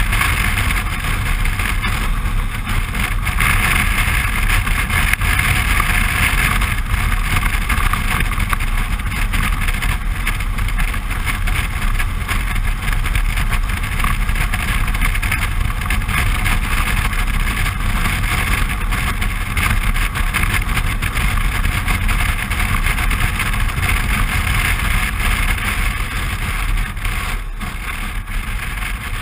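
Riding noise of a Suzuki V-Strom 650 motorcycle at road speed: a steady rush of wind over the camera microphone with the engine running underneath. The noise eases a little near the end.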